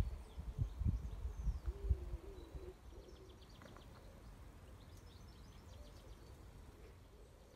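Faint outdoor ambience with small birds chirping now and then, over low rumbling buffets during the first two seconds.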